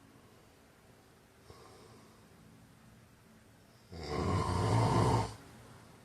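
A man snoring: a faint breath, then about four seconds in one loud snore lasting over a second.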